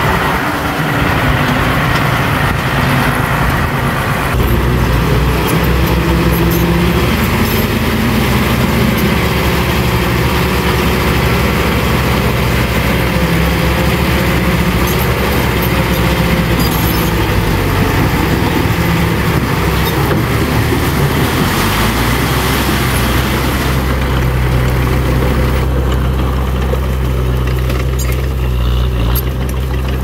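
Diesel engine of heavy earthmoving machinery running steadily, its engine note changing about four seconds in and again a little past twenty seconds.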